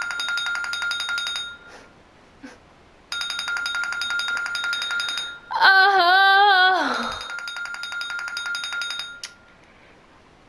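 A timer alarm goes off at the end of a three-minute countdown with a rapid trilling ring. It rings in two-second spells with short gaps, and a woman's long wavering cry cuts in over it about six seconds in. The ringing stops about nine seconds in.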